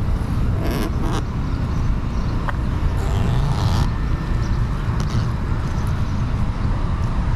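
Steady low rumble of road traffic, with a few brief rustles of handling, about a second in and again around three seconds in.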